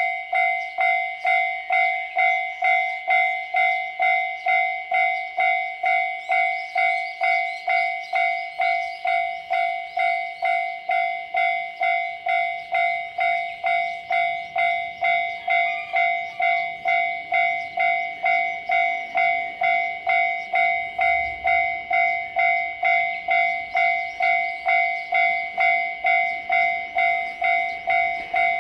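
Japanese railway level-crossing alarm ringing its steady kan-kan, about two strokes a second, each stroke the same ringing two-note clang. The alarm is the warning that a train is approaching the crossing.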